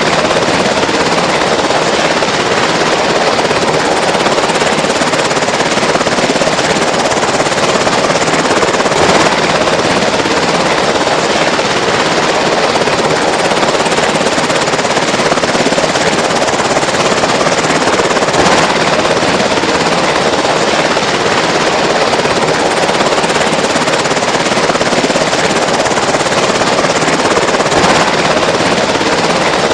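Helicopter hovering close by, its rotor chopping rapidly and steadily and its engine running, loud and unbroken throughout.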